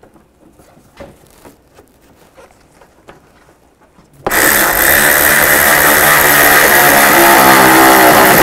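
Faint clicks of a bolt being handled and threaded by hand, then about four seconds in a Milwaukee M12 cordless driver starts abruptly and runs loud and steady, driving the bolt home.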